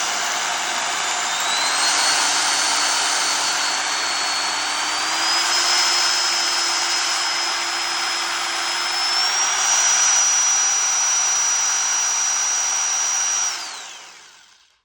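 Ryobi reciprocating saw's motor running with a steady whine that steps up in speed three times, then the trigger is released and the motor winds down to a stop near the end.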